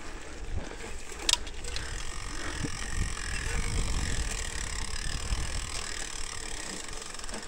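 Mountain bike rolling along a dirt trail strewn with leaves and twigs: a steady low rumble with light mechanical rattling from the bike, and one sharp click about a second in.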